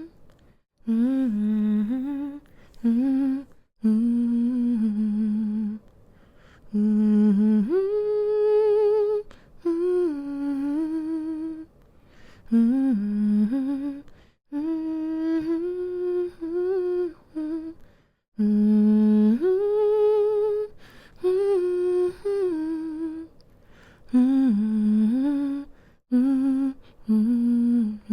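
A woman humming a slow, gentle lullaby melody to soothe a baby to sleep: phrases of held notes with small pitch turns, separated by short breath pauses.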